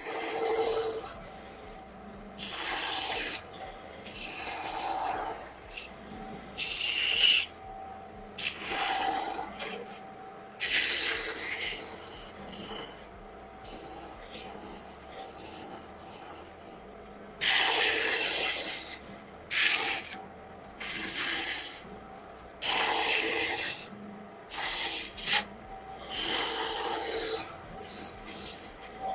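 Wood being worked by hand in repeated rasping strokes, each about a second long, with short, irregular pauses between them.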